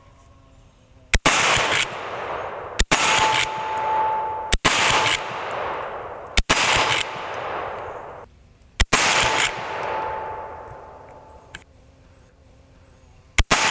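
Six shots from a Marlin 1894 CST .357 lever-action rifle, the first five coming every second or two and the last after a longer pause, each followed by a long echo fading through the woods. A ringing tone follows three of the shots: steel targets being hit.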